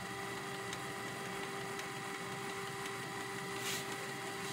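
Canon PIXMA G1220 EcoTank inkjet printer's mechanism running with a steady whir and hum, while it tries to feed paper.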